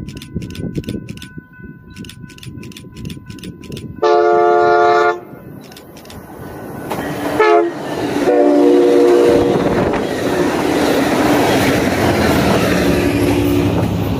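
Grade-crossing bell ringing steadily, then an Amtrak San Joaquins passenger train sounds its horn in loud blasts as it comes through the crossing at speed. The horn drops sharply in pitch as the locomotive passes, and a steady rush and clatter of the bilevel passenger cars follows, with a last lower horn note near the end.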